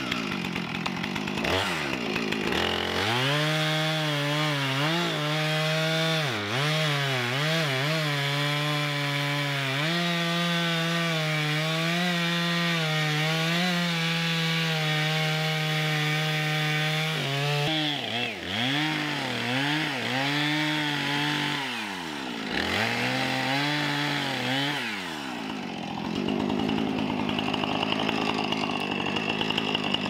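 Two-stroke chainsaw running at high revs while bucking a felled log. Its pitch repeatedly sags and recovers as the chain bites into the wood and is eased off.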